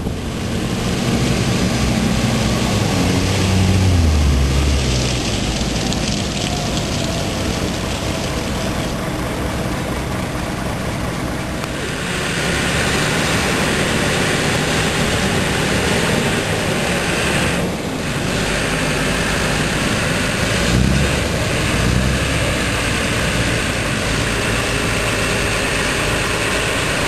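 Engines of military amphibious vehicles running as they move, with a strong low hum about four seconds in; the sound gets louder from about twelve seconds in.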